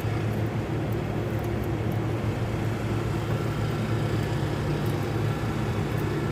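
Steady low mechanical hum of running machinery, even in level, with a few faint small ticks.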